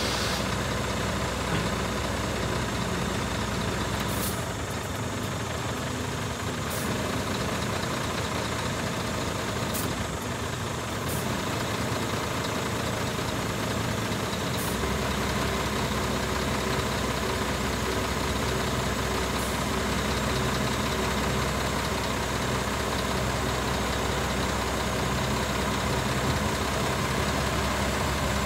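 Scania R490 truck's six-cylinder diesel engine running steadily, driving the hooklift hydraulics as the lift arm moves. The deep hum grows fuller about halfway through, and a few faint clicks sound in the first half.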